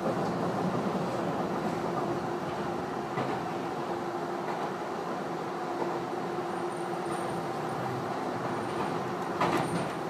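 Cabin running noise of a Tobu 50090-series electric train at speed: a steady rumble of wheels on rail with a constant hum. A brief sharper knock from the track comes near the end.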